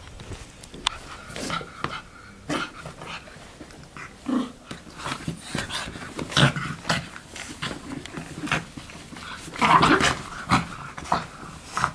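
A pug makes a rapid, irregular string of short noises as it plays and paws at a person's leg and foot. The loudest noises come about halfway through and again near the end.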